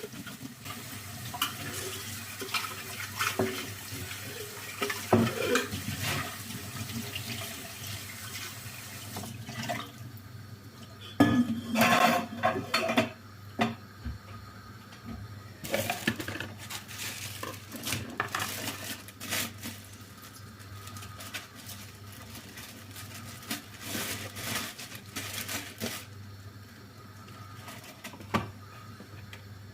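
Kitchen tap running into a sink, with dishes and cutlery clinking. The running water stops about ten seconds in, and short clatters of crockery follow.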